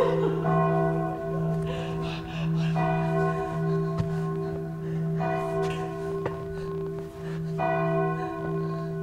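Church bell tolling slowly, struck about every two and a half seconds, each strike ringing on over a steady low hum.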